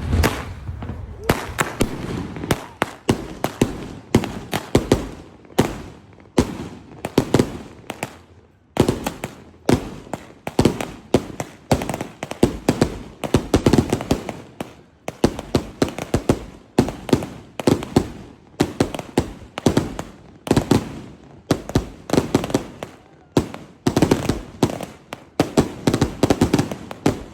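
Thunder King firecracker strings going off: a rapid, irregular crackle of loud bangs, several a second, with brief pauses in the run.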